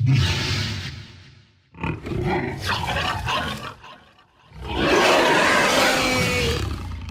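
Monster roar sound effect layered from animal recordings such as wild boar, pig, lion, tiger and bear: three rough roars, the last the longest and loudest, starting about halfway through.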